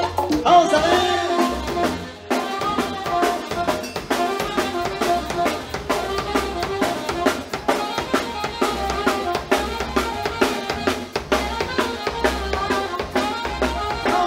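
Latin band music, an instrumental stretch driven by drums and percussion over a steady bass line. It dips briefly about two seconds in.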